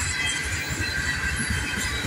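Freight train of hopper cars rolling past, the wheels rumbling steadily on the rails with a thin high squeal from the wheels.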